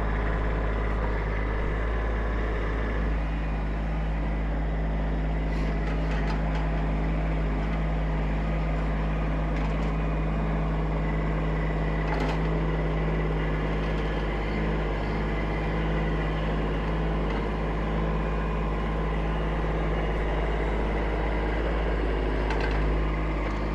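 Kubota SSV75P skid steer's diesel engine running steadily under light load as its grapple works, the note shifting slightly about three seconds in, with a few faint knocks.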